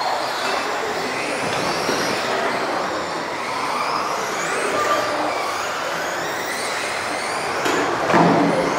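Several electric 1:10 off-road RC buggies racing, their motors whining and rising and falling in pitch over a steady noisy rush of tyres and running gear.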